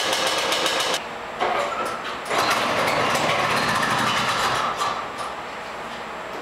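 Small snowmobile engine running with a fast, even firing beat, which drops away suddenly about a second in. Uneven engine noise follows, rising and falling, loudest in the middle.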